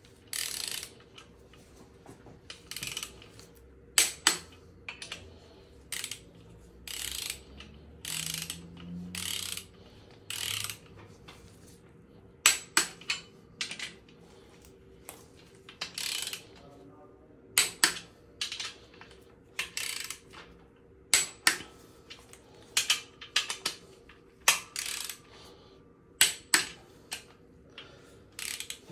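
Ratcheting torque wrench worked in short back-and-forth strokes, its pawl clicking, with a sharp single click standing out now and then. The bolts are the crankshaft main bearing cap bolts of a 4.4 V8 diesel engine block, being drawn down in sequence to the first tightening stage of 60 Nm.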